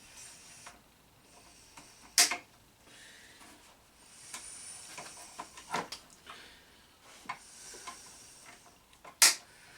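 One-handed quick-grip bar clamps being taken out of their packaging: faint rustling with three sharp clicks or knocks, about two, six and nine seconds in.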